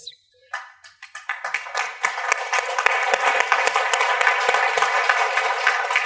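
Audience applause, starting about half a second in, building over the next second and then holding steady.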